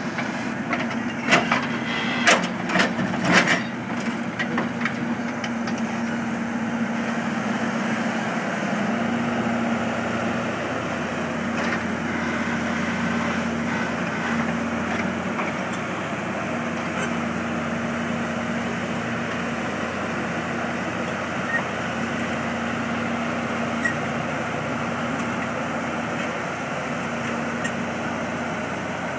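Engine of a digging machine running steadily at a constant pitch while excavating, with a few sharp knocks in the first few seconds.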